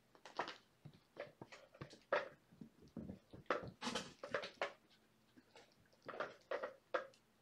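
Young kittens giving short, irregular mews and squeaks in clusters, with a louder run in the middle and another near the end.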